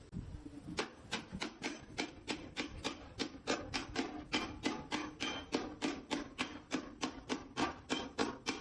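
Hammer striking galvanized sheet metal in a fast, even rhythm of about four blows a second, each with a short metallic ring, starting after a brief pause about a second in.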